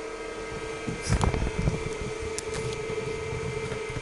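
Steady whir of a running IBM PC XT (5160): its power-supply fan and spinning MFM hard drive, with one steady hum-like tone. A few light handling knocks and rustles about a second in.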